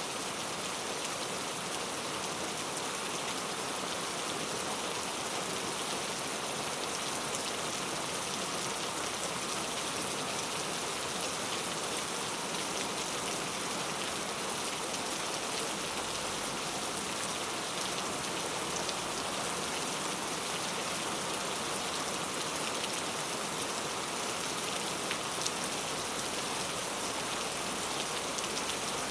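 Steady rain falling, an even hiss with the faint ticks of individual drops.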